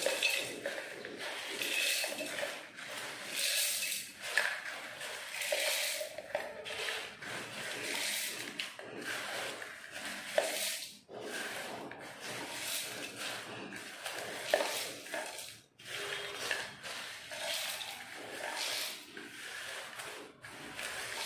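Dry roasted lentils and dried red chillies being swept by hand off a steel plate into a steel mixer-grinder jar: grains sliding, scraping and rattling against the metal, coming and going unevenly.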